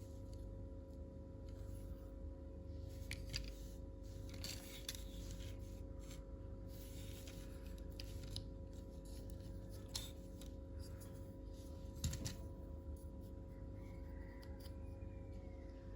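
Scattered small clicks and rustles as a plastic toy and its packaging are handled, over a steady low hum.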